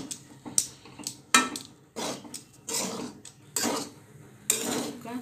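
Spatula scraping and stirring semolina upma in a pan: a run of short scrapes and knocks against the pan, about one every three-quarters of a second.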